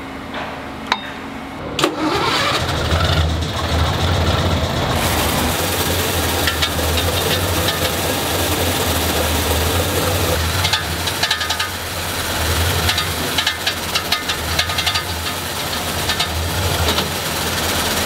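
Mack NR truck's diesel engine starting about two seconds in, after a couple of clicks, then running steadily at a low pitch.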